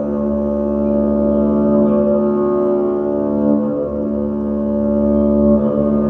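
Double bass played live through a looper, building a drone of several held low notes layered on top of each other. A deep bottom note drops out briefly about four seconds in.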